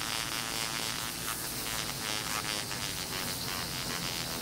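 Foredom flex-shaft power carver running at turned-down speed with a cylindrical sanding drum wrapped in sandpaper, sanding a wooden duck body. A steady motor hum with the hiss of abrasive on wood.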